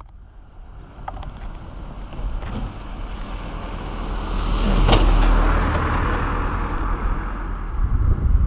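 A road vehicle passing by: its noise swells to a peak about five seconds in, the pitch dropping as it goes past, then fades away.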